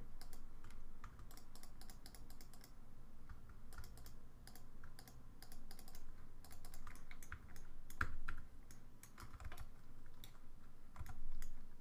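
Computer keyboard keys tapped in irregular short runs of clicks, with a louder cluster about eight seconds in, over a faint low hum.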